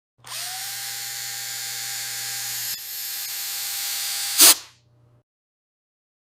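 Steady hissing with a faint steady whine and a low hum underneath, ending in a brief louder blast about four seconds in, then cutting off.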